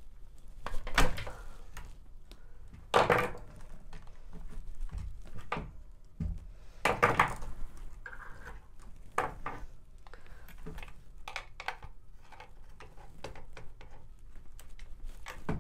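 Plastic front plate of a Bluetti EB150 solar generator being pried off and its wiring worked loose by hand: scattered plastic clicks and knocks, the loudest about one, three and seven seconds in.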